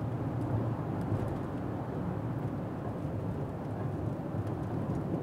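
Steady road and engine noise inside the cabin of a Volkswagen Touareg 3.0 TDI, a V6 diesel, driving along at a constant pace.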